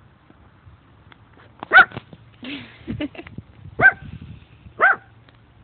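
A small dog barking: three short, high barks, the last two about a second apart.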